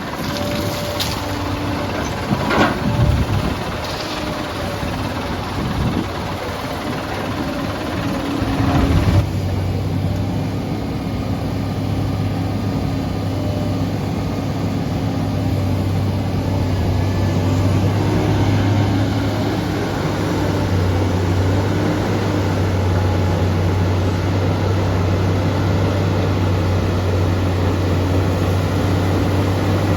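SANY excavator's diesel engine running as it works, a steady low drone with two louder surges in the first ten seconds, then holding an even hum.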